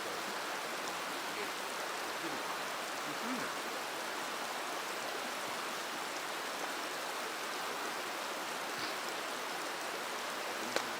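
Steady rushing of a mountain stream, an even wash of water noise, with a single sharp tick near the end.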